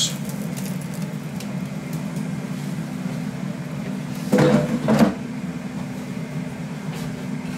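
Steady low hum of an air fryer's fan running, with a short clatter ending in a sharp click about four and a half seconds in.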